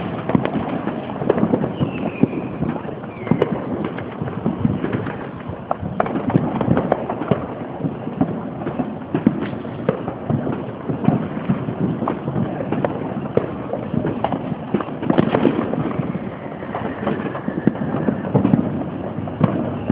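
Fireworks and firecrackers going off without pause: a dense crackle of many overlapping pops and bangs.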